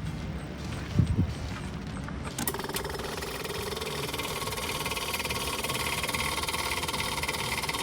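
A small electric pump motor starts about two and a half seconds in and runs with a steady buzzing whine. A low thump comes about a second in.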